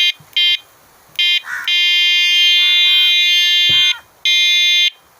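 Battery-powered bicycle air horn sounding one high, very loud tone in blasts: two short beeps, then one long blast of over two seconds, then a shorter blast near the end.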